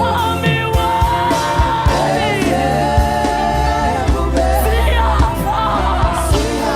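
Live gospel worship music: voices singing a held, gliding melody over a band, with drums keeping a steady beat.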